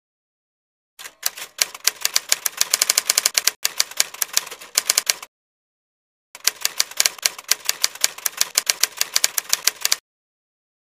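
Typewriter typing sound effect: two runs of rapid key clacks, the first from about a second in to about five seconds, the second from about six and a half seconds to ten, with a pause between.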